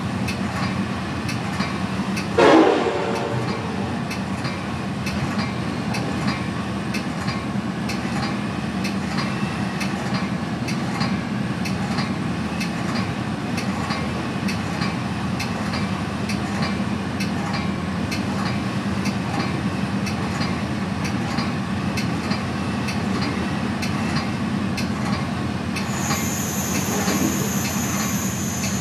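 Steady rumble of a Metra commuter train riding along, with regular clicks from the wheels. About two and a half seconds in, a passing freight locomotive sounds a short horn blast whose pitch drops as it goes by. Near the end a steady high-pitched tone sounds for a few seconds.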